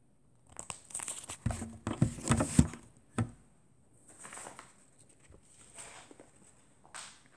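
Handling noise on the recording device's microphone as it is moved and adjusted: a cluster of knocks, clicks and rustles in the first three seconds, then a few softer rustles.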